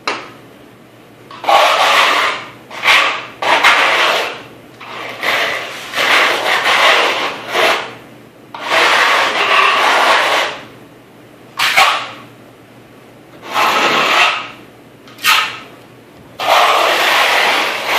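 Hand-held floor scraper pushed across a concrete floor, scraping off old residue in about a dozen rough strokes at an uneven pace, each lasting from half a second to about two seconds.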